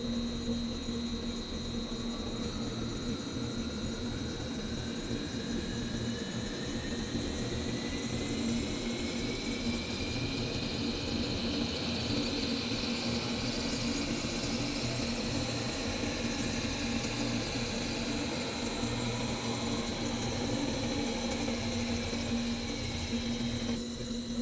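Metalworking machine running steadily with a constant hum and a steady high tone, while a thinner whine climbs slowly for about ten seconds and then falls away.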